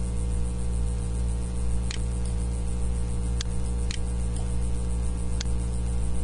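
Steady electrical mains hum and hiss in the recording, broken by four short clicks of a computer mouse.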